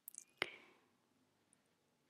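Near silence: room tone, with a few faint short clicks in the first half second, the clearest about half a second in.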